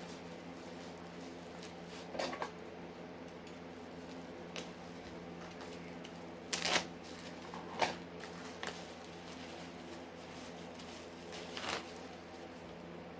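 Paper and packaging handled by hand, with a handful of short rustles and crinkles, the loudest a little past halfway. A steady low hum runs underneath.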